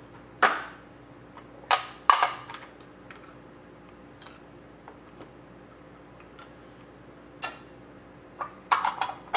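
Trading-card box and packs being opened and handled: a handful of short, sharp crinkles and taps of cardboard and wrapper, a pair about two seconds in and a quick cluster near the end.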